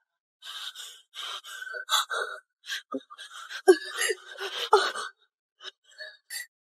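A woman gasping and breathing hard in fright: a run of sharp, breathy gasps, with a few short voiced cries about two-thirds of the way through.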